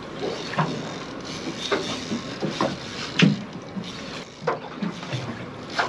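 Fishing reel drag paying out line as a hooked snapper makes a long run, with irregular sharp knocks about once a second over a steady rushing noise.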